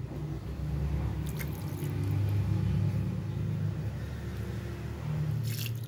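Liquid being poured onto raw rice in a rice cooker pot: a steady low pouring sound with a short click about a second and a half in and another near the end.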